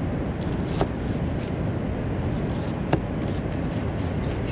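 Knife slicing an onion, with two sharp clicks of the blade meeting the surface beneath, over a steady low rumble of background noise.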